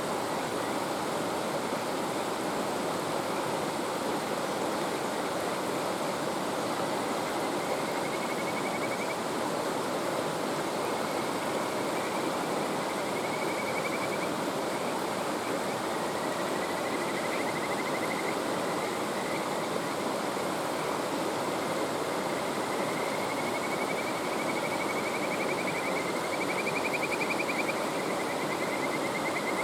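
Mountain stream running steadily, with kajika frogs (Buergeria buergeri) giving faint, fast-trilled calls that rise slightly in pitch, a few at first and more often in the last few seconds.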